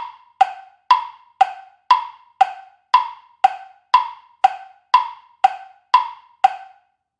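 Quiz countdown timer sound effect: a pitched wood-block tick about twice a second, each tick ringing briefly, stopping shortly before the end.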